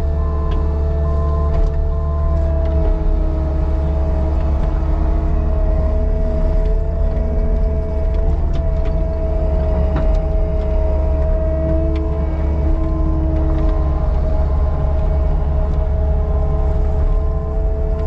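Caterpillar 299D2 compact track loader working, its diesel engine droning steadily with a strong low rumble and a steady whine over it that dips in pitch now and then, plus scattered light clicks and knocks.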